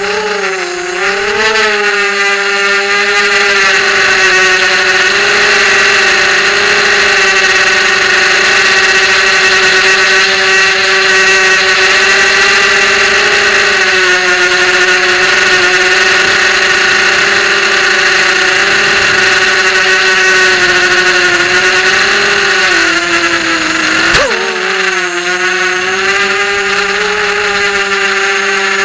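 FPV racing quadcopter's brushless motors and propellers running with a steady high buzz, spinning up at the start and wavering in pitch as the throttle changes. About four seconds before the end the pitch drops briefly with a sharp click, then climbs back.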